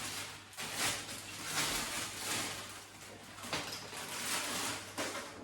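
Soft rustling and scraping swells, about one a second, as a ring light's tripod stand is handled and unfolded.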